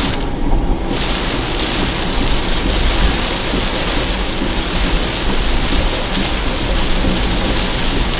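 Heavy rain falling on a car's windscreen and roof, heard from inside the car, over the steady low rumble of the car driving on a wet highway.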